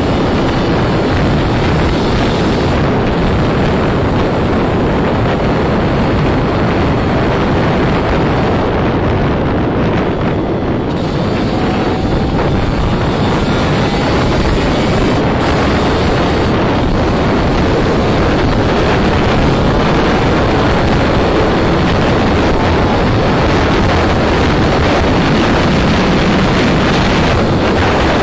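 Steady wind buffeting on the microphone over a Yamaha DTR 125 two-stroke trail bike riding along at speed, the engine and the rush of air blending into one loud, even noise.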